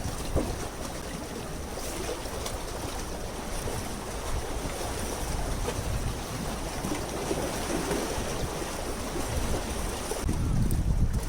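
Sea water lapping and washing, with wind on the microphone that grows stronger near the end.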